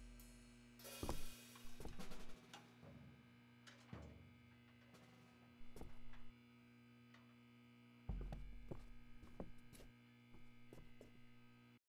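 A steady low hum with scattered, irregular soft thuds and clicks over it, cutting off abruptly near the end.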